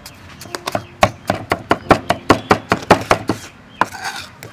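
A cleaver chops rapidly on a thick wooden chopping block, mincing palm sugar and seasoning into a wet chili paste. The even knocks come about five a second from about a second in, with a short pause near the end.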